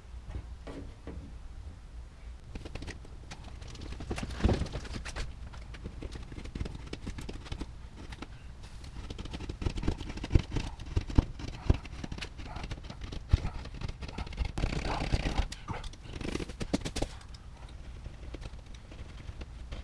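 Irregular knocks and clicks from hands-on work, with a run of louder, sharp knocks about ten to thirteen seconds in and short rustling, scraping stretches in between.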